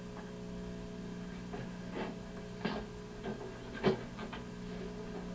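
A steady low hum with a few faint, short knocks or taps about two, three and four seconds in.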